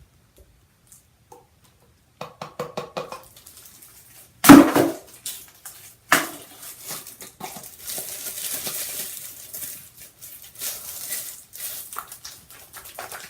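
Plastic hair-dye bottles handled while the colour is mixed: a few quick taps, a loud knock about four and a half seconds in, a second knock, then a long rattling, sloshing stretch as the applicator bottle is shaken.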